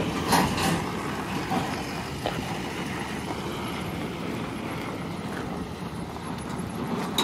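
A truck's engine running as it drives away hauling a loaded trailer, a steady low rumble with a few faint knocks.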